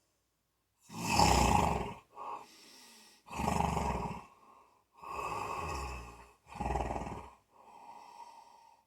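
A person snoring in their sleep. There are four loud snores, each about a second long, with quieter breaths between them.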